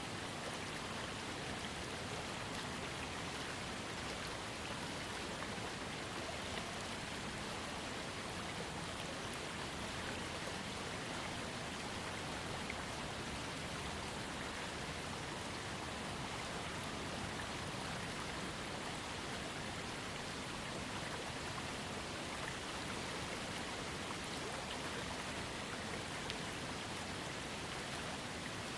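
Waterfall fed by a trickling creek: steady falling and splashing water, an even hiss with fine droplet detail.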